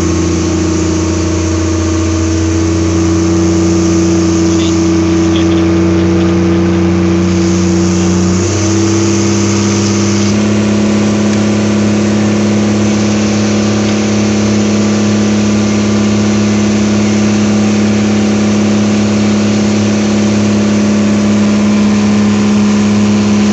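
A fishing boat's engine running steadily, its pitch stepping up twice, about eight and ten seconds in, as the throttle is opened.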